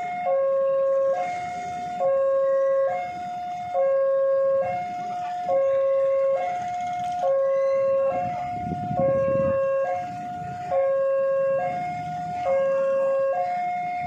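Electronic two-tone warning alarm of a railway level crossing, alternating high and low a little under once a second, sounding because a train is approaching the crossing.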